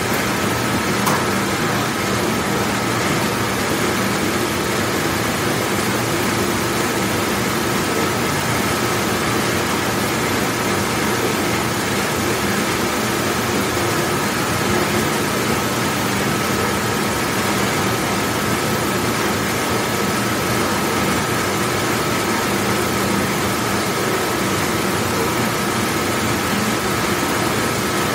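Large commercial dishwashing machine running: a steady rush of wash noise over a low motor hum, with a thin steady whine.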